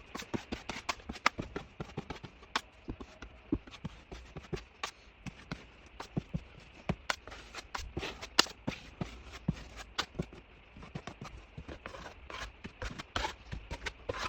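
Irregular light knocks, taps and clicks, often several a second and uneven in strength, from hand work on drywall and wood pieces.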